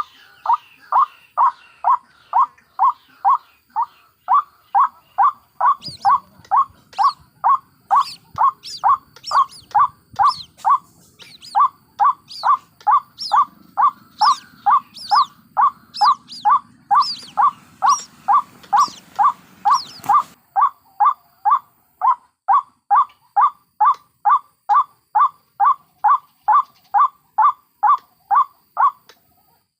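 White-breasted waterhen (ruak-ruak) calling: a steady, rhythmic run of short calls about two a second. From about six seconds in to about twenty, thinner high-pitched calls join in about once a second, the chicks' calls mixed into this lure recording.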